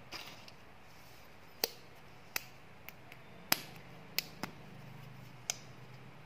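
Hard plastic candy packaging clicking and tapping as fingers pick through and handle it, including a clear plastic blister holding an eyeball-shaped candy: about seven short, sharp, separate clicks, irregularly spaced.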